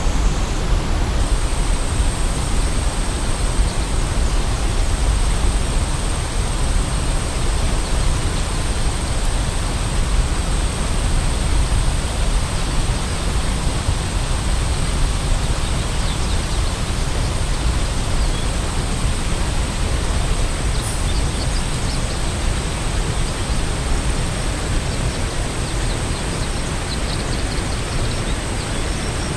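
Waterfall rushing: a steady, unbroken wash of water noise, heaviest in the low end, with a thin steady high tone above it. A few faint bird chirps come through in the second half.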